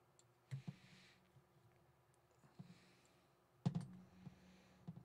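Faint clicks and taps of a tool driving small M3 screws into a laser module's mount. The two sharpest clicks come about half a second in and near the middle.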